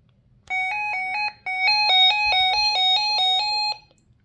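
RadioShack 12-259 weather alert radio sounding its alert siren through its small speaker as a preview of the siren volume setting: a loud, rapidly alternating two-tone warble, broken by a short gap about a second in.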